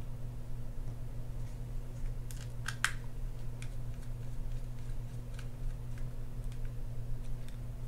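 Small metallic clicks and ticks of a mini screwdriver turning screws into a fishing reel's end-plate parts, with a cluster of sharper clicks about two and a half seconds in. A steady low electrical hum runs underneath.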